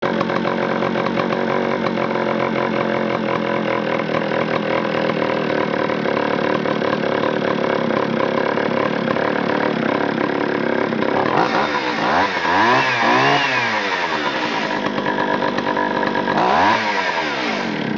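Two-stroke chainsaw engine, 59 cc, running steadily, then revved up and down several times in the second half, with one more rev near the end.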